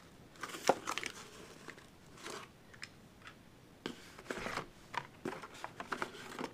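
Cardboard shipping case being handled: flaps rustling and scraping as they are pushed open, with scattered sharp clicks and crinkles, thickest in the second half, as a blister-packed toy car card is pulled out from between the dividers.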